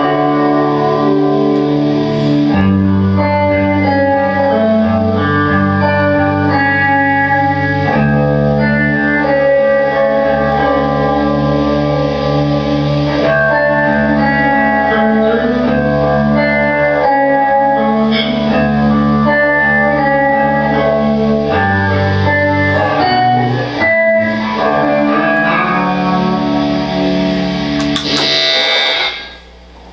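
Electric guitar chords played through an FV-1 hall reverb patch on a development board, each chord ringing on in a long, lush wash of reverb. Near the end the sound cuts off after a brief high burst of noise.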